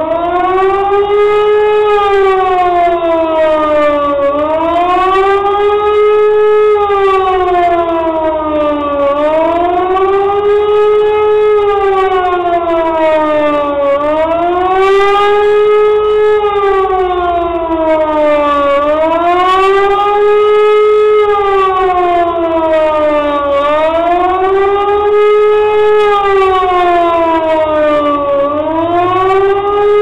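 E57 electromechanical civil-defence siren sounding the German 'Warnung' public-warning signal in a test: a loud wailing tone that rises and falls smoothly, about once every five seconds.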